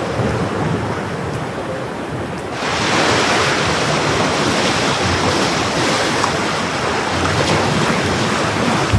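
Sea surf rushing on the shore with wind on the microphone, an even roar that grows louder and brighter about two and a half seconds in.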